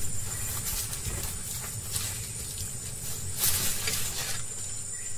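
A tiger moving through dry grass and brush: scattered rustles and crackles, with one louder rustle of grass about three and a half seconds in, over a low steady rumble.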